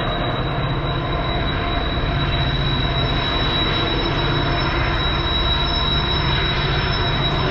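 Freight train cars rolling steadily around a tight curve: a continuous rumble with a thin, high, steady wheel squeal over it.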